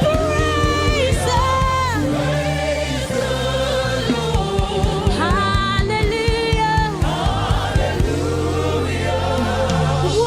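Live gospel worship music: a choir of voices singing long held, gliding notes over a steady low instrumental accompaniment.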